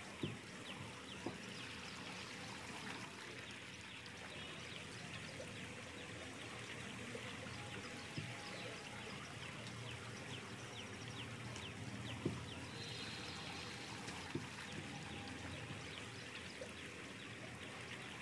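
Wooden rolling pin rolling out wheat-flour puri dough on a wooden board: a faint steady rolling rumble with a few soft knocks of the pin on the board.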